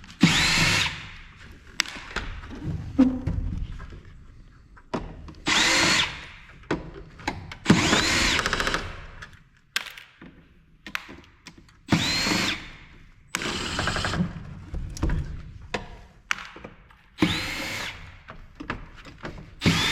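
Power drill driving screws out of a monitor's casing in short bursts, about six times. Each time the motor whines up in pitch and then holds. Clicks and knocks of handling come between the bursts.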